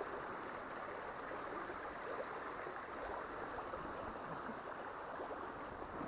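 Shallow rocky forest stream babbling steadily over stones, with a faint short high chirp repeating about once a second.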